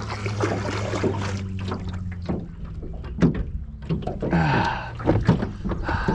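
Scattered knocks and clunks in a small aluminium boat, over a low steady hum that fades out about two seconds in.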